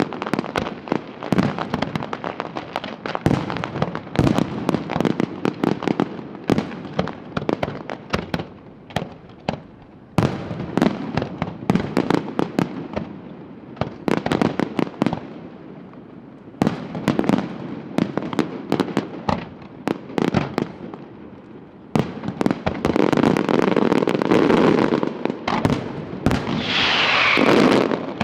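Fireworks display: rapid volleys of bangs and crackles from aerial shells, coming in waves with short lulls. Near the end it builds to a dense crackling barrage, with a brief falling whistle.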